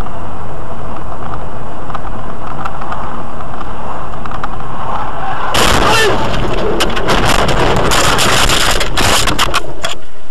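A car running along a road, heard from inside through a dashcam. About five and a half seconds in, a sudden loud rumble with many knocks and cracks begins as the car leaves the road and ploughs through snow and brush into trees. It lasts about four seconds, then settles.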